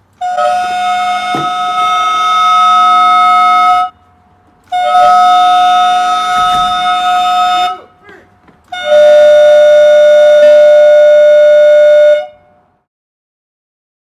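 Air horns of a package-theft alarm blasting three times, each blast about three seconds long with short gaps, the last one a little lower in pitch. The horns are set off when the package's weight is lifted off the alarm's scale.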